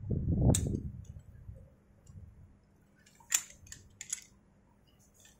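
Clicks and clinks of metal rope-access hardware (carabiners and rope devices) being handled on a harness. A low rumble with a sharp click comes in the first second, then three sharp clicks about three to four seconds in.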